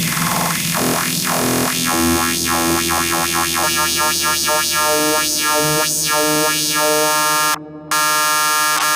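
Techno playing over a DJ set's sound system: repeated pulsing synthesizer stabs, then a melodic synth line stepping between held notes. The sound cuts out suddenly for a fraction of a second about three-quarters of the way through, then comes back.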